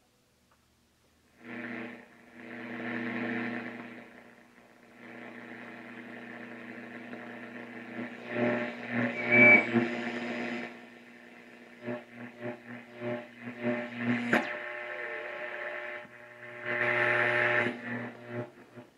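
Westinghouse Columaire 801 eight-tube superheterodyne radio being tuned by hand: hum and static from its speaker come and go as the dial moves across signals, with a sharp crackle about fourteen seconds in.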